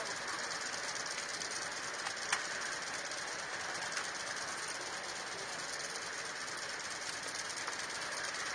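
A vehicle running steadily, an even mechanical noise, with a short click about two seconds in and a fainter one a little later.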